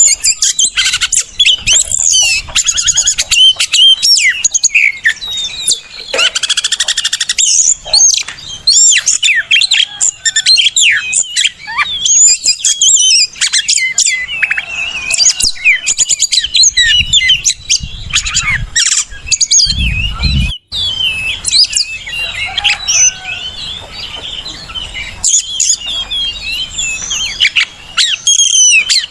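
Oriental magpie-robin singing: a fast, varied stream of whistles, chirps and harsh notes. A brief low rumble comes about twenty seconds in, followed by a momentary dropout.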